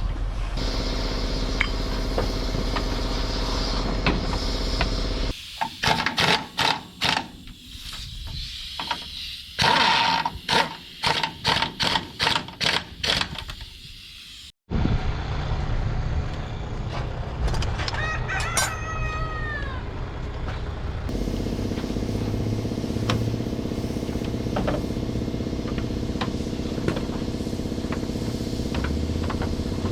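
A rooster crows once, about two-thirds of the way in, over steady background noise. Earlier comes a run of sharp knocks, roughly two a second, that stops at a sudden cut.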